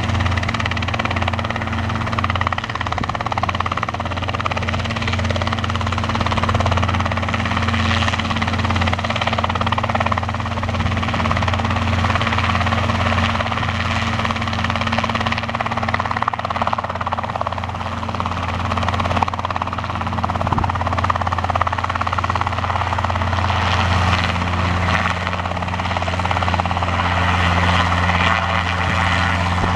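Robinson R22 piston helicopter, its four-cylinder Lycoming engine and rotor running with a steady drone. About three-quarters of the way through, a second engine note joins in.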